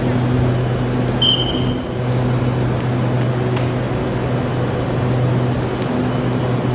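Steady low electric hum of a stationary SRT Red Line electric commuter train standing at the platform with its doors open. A single short high beep sounds about a second in.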